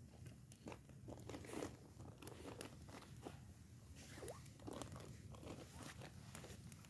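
Faint, irregular crunching and crackling: a string of short, uneven clicks and crunches over a low steady background hum.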